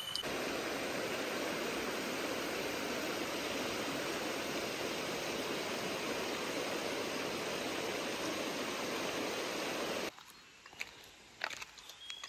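Shallow river running over rocks: a steady rush of water. It cuts off suddenly about ten seconds in, leaving quieter outdoor sound with a few faint clicks.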